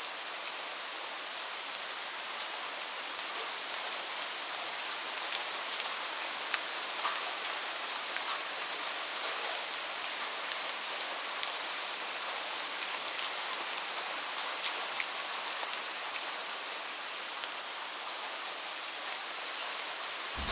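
Steady rain hiss with many separate drops ticking sharply on a surface.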